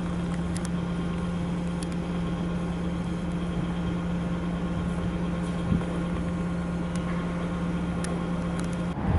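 A steady, even machine hum at one low pitch, like an engine or motor idling, which stops near the end.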